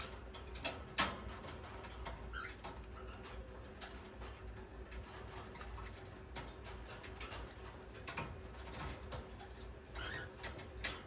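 Light, irregular clicks and taps around a birdcage as pet parrots move about on bars and perches, with a couple of soft, brief chirps; the sharpest click comes about a second in.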